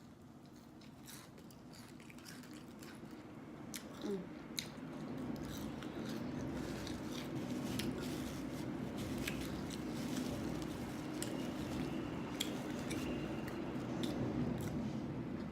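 Close-miked chewing and biting of food, with scattered small wet clicks and smacks. A steady low hum comes up from about five seconds in and stays under it.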